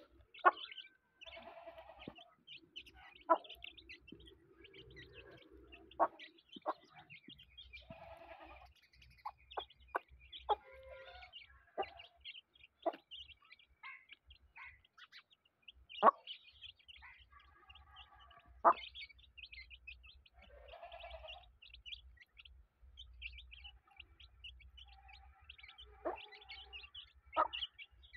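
Chicks peeping continuously while a hen gives short runs of soft, low clucks as they feed on scattered grain. About a dozen sharp taps stand out as the loudest sounds.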